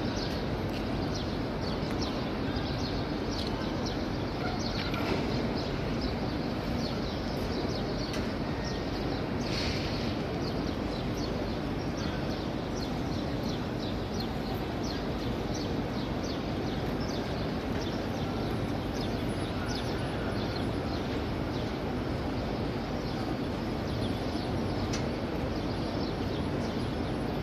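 Steady hubbub of a large crowd of pilgrims walking around the Kaaba in tawaf, an even wash of distant voices and movement, with many short high ticks or chirps over it.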